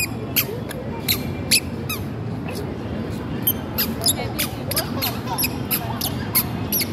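A toddler's squeaky shoes chirping with her steps: short, sharp squeaks at an irregular walking pace of about two or three a second. A low murmur of distant voices runs underneath.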